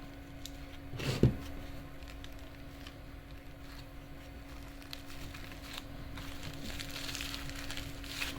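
Handling noises: a single sharp knock about a second in, scattered small clicks, and rustling near the end, over a steady low hum.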